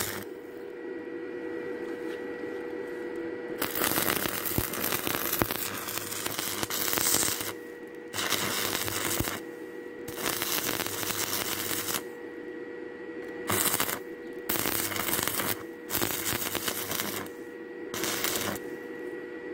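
Stick-welding arc from a Stanley Star 4000 inverter welder: the rod electrode crackles and sizzles on a rusty steel hinge, breaking off and restarting several times. A faint steady hum runs beneath it.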